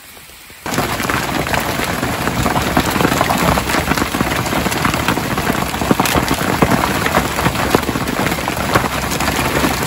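Heavy rain falling on a narrowboat's painted steel deck: a loud, dense patter of drop impacts. For the first moment it is softer rain over the canal, then the close, louder patter on the steel starts suddenly.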